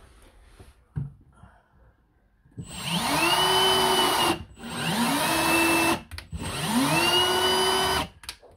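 A handheld power drill drilling a pilot hole for a screw. It runs in three short bursts starting about two and a half seconds in, and each burst spins up in pitch and then holds steady before stopping.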